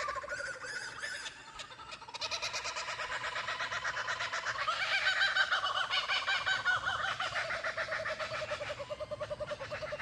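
Kookaburras in a laughing chorus: fast repeated call notes that start about two seconds in, swell to their loudest around the middle and ease off near the end, with other small birds chirping at the start.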